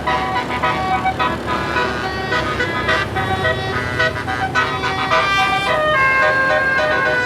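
Bus telolet basuri horn, a multi-note musical air horn with 36 notes, playing a melody. It runs through quick short notes, then holds longer notes near the end.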